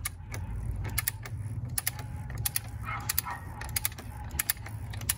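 Ratchet wrench clicking in short runs about every second as it is swung back and forth, tightening the oil filter housing cap on a 2.0 L turbo engine. A low steady rumble runs underneath.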